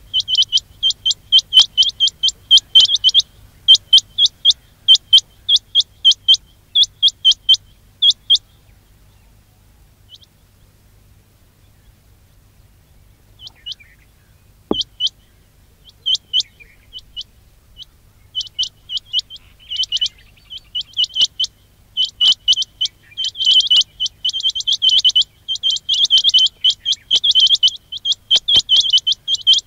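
Quail (batair) calling in rapid high-pitched chirps, strung together in quick runs. There is a pause of several seconds in the middle, after which the chirping returns and grows denser. It is a recorded call played to lure quail into traps.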